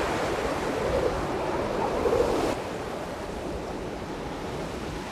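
Strong gusty wind rushing and buffeting the microphone. It drops suddenly and abruptly about two and a half seconds in, then continues at a lower level.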